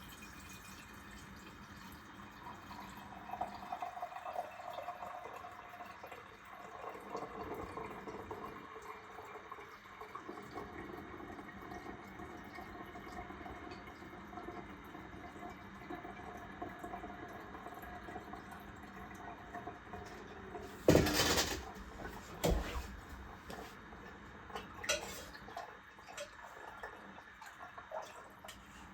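Fresh raw milk pouring and trickling through a coffee filter into a container, with a wavering pitched trickle. Two sharp knocks come about two-thirds of the way through, a second and a half apart, followed by a few lighter clicks.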